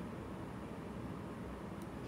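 Steady faint background hiss with a low hum: room tone between spoken phrases. There is one faint tick near the end.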